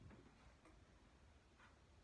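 Near silence, with three faint short scrapes of a spreader smoothing body filler onto a truck dashboard.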